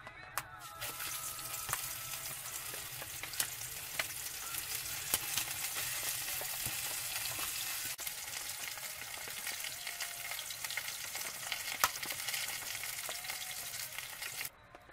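Flour-dusted fish pieces frying in hot oil in a frying pan: a steady sizzle with scattered pops and crackles. The sizzle starts about a second in, as the fish goes into the oil, and cuts off suddenly near the end.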